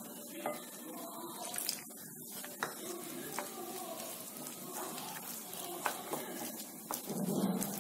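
Spice masala (chilli powder, pepper-cumin powder, garam masala, cornflour) being stirred with a little water into a paste in a glass bowl: soft wet mixing noise with scattered light clicks against the glass, and a louder stretch of mixing near the end.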